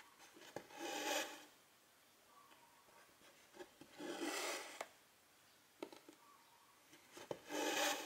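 Silk embroidery thread pulled through 11-count cross-stitch fabric: three rasping swishes about three seconds apart, each under a second, with small ticks of the needle between them.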